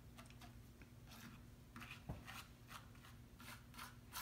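Faint, quick scrapes of a plastic spatula spreading wet black acrylic paint across a canvas, about a dozen short strokes, with one light knock about two seconds in.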